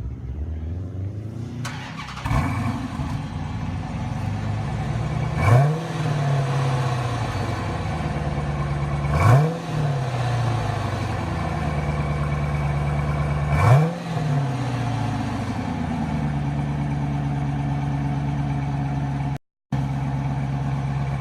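2014 Dodge Challenger R/T's 5.7-litre HEMI V8 idling through DynoMax Race Bullet mufflers in place of the mid-muffler, with the rear resonators still fitted. The throttle is blipped three times, each rev climbing quickly and settling back to idle. The sound cuts out for a moment near the end.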